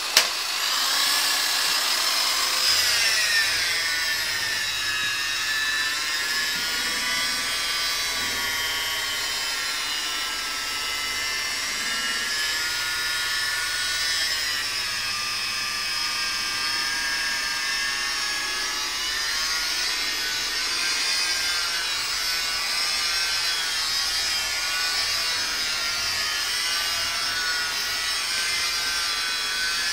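Corded electric car polisher with a foam pad running against the paint: a steady motor whine whose pitch sags and recovers now and then. A single sharp click right at the start.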